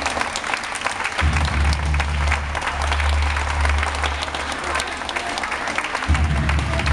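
Audience applauding, with music and a deep bass line underneath that drops out twice.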